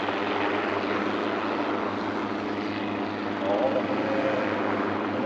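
Hughes 269 (Schweizer 269C) helicopter's piston engine and rotor running with a steady, even drone.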